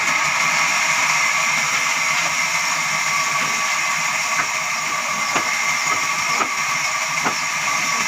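Large vertical band saw running and cutting into a jackfruit log as men feed it along the table, a steady whirring hiss. A few short knocks come in the second half, about a second apart.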